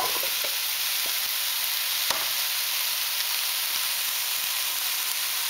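Chopped pumpkin, carrots and potatoes sizzling in hot oil with frying onion in a pot: a steady hiss, with a few light knocks as the vegetables are tipped in and shift in the pot, one about two seconds in.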